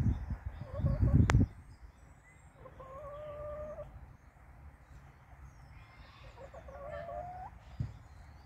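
A loud low rumbling noise for the first second and a half, then two drawn-out chicken calls: one about three seconds in and a second, rising one near seven seconds.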